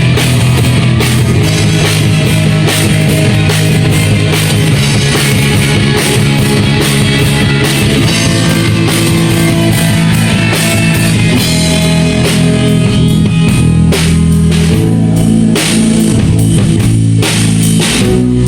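A rock band playing live, loud and steady: a drum kit beating time under electric guitars and bass.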